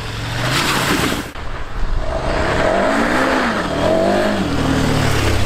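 KTM 1290 Super Adventure R's 1301 cc V-twin engine ridden on a dirt track, the revs rising and falling twice as the rider works the throttle, with loose dirt and gravel noise from the knobby tyres.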